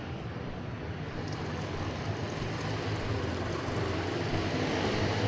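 Street traffic noise: a steady rumble of passing motor vehicles, slowly growing louder.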